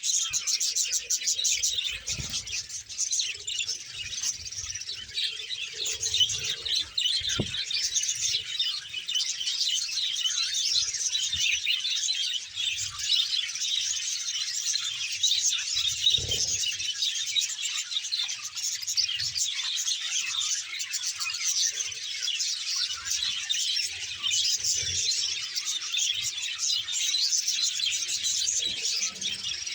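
A large colony of budgerigars chattering and chirping without pause, many high, overlapping calls at once.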